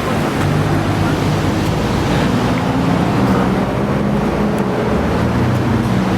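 Cars in a drive-thru line running close by: a low engine hum that shifts in pitch over a steady rush of noise.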